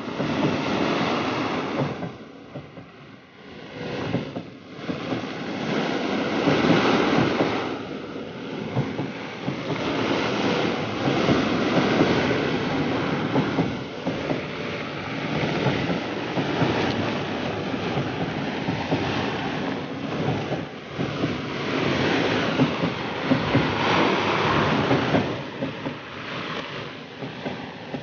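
Sea waves breaking and washing on the shore, the surf swelling and easing every few seconds.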